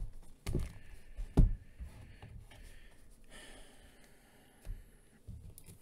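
Trading cards being handled and put down on a table: a few sharp taps, the loudest about a second and a half in, and faint sliding and rustling between them.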